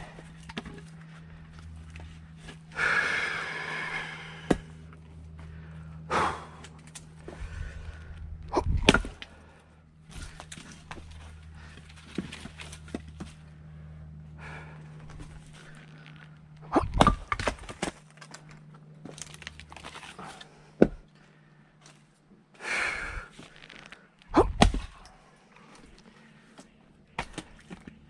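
Firewood being split by hand: heavy strikes every few seconds, some ending in the crack of the log giving way, with hard breaths between swings.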